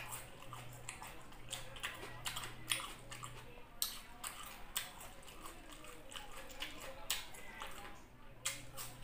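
Close-miked chewing of crunchy raw red onion, with irregular sharp crunches and wet mouth clicks over a faint low hum.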